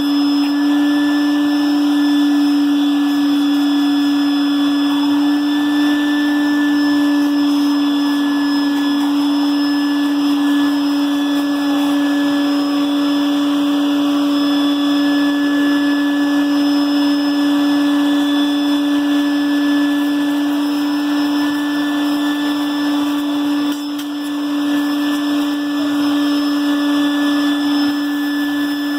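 Shop vacuum running steadily, as used during intake-valve carbon cleaning, with a steady hum and hiss and one brief dip about three quarters of the way through.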